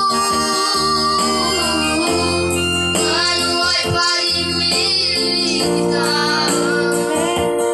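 Electronic keyboard playing sustained, organ-like chords to accompany a song, with singing voices over it.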